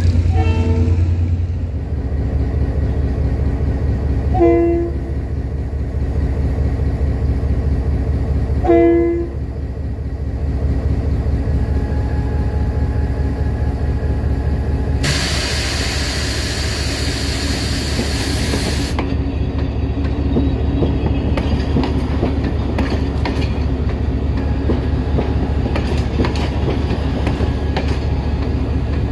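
Diesel train running with a steady low engine drone and sounding its horn in short blasts at the start, about four seconds in and about nine seconds in. A loud hiss lasts about four seconds around the middle, then the wheels click over the rail joints.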